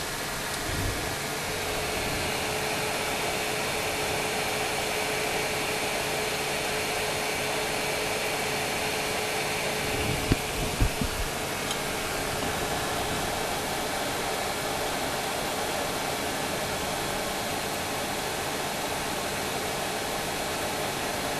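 Hot air rework wand blowing steadily, a continuous rush of air, with a few sharp knocks about halfway through.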